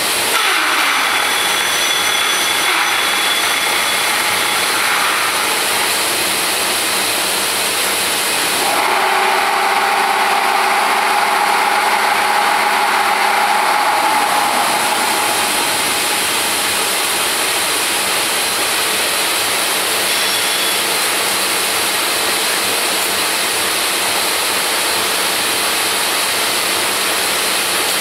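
80 mm radial drill machine running, with a steady mechanical hum from its head. About a third of the way in, a whining tone joins for roughly five seconds, then drops away.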